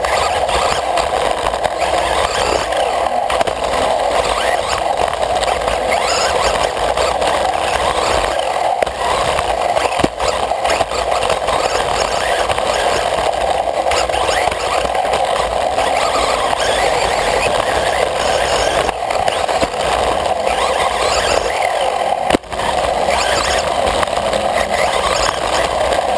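Onboard sound of a radio-controlled off-road buggy lapping a dirt track: steady rattling drivetrain and tyre noise, with a faint motor whine rising and falling as it speeds up and slows. There are two short breaks in the noise, about ten and twenty-two seconds in.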